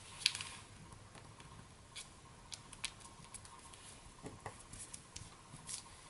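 Faint crinkles and small clicks of a sheet of origami paper being folded and pressed flat by hand, a scattering of separate little taps and rustles.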